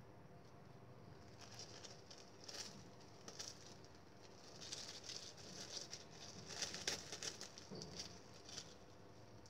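Clear plastic covering a hand, crinkling and rustling in short, irregular bursts as grated cassava dough is pressed and shaped into a ball in the palm. The sound is faint and busiest past the middle.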